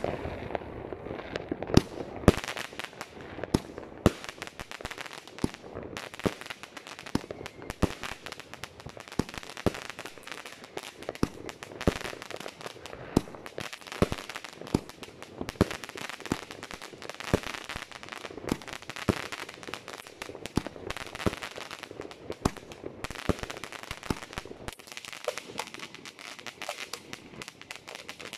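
Funke "Chrys-Rain Variations" consumer firework battery firing a steady series of shots, a sharp pop every half second to a second, over continuous crackling from the bursting stars.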